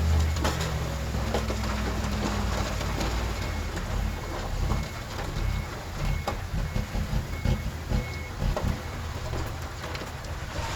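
Heavy diesel earthmoving machinery running, loudest at the start and then rising and falling under load, with scattered knocks. Through the middle, a reversing alarm beeps at an even pace.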